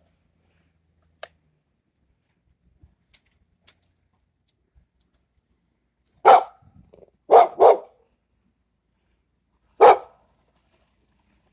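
Dog barking: a single bark, a quick double bark about a second later, then one more bark near the end, each short and loud.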